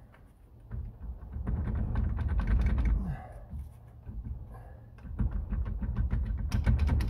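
Rebuilt transmission being wiggled and shoved toward the bell housing on its guide pins: two spells of rapid metal clicking and clunking over a low rumble of handling, each ending with a short falling grunt of effort.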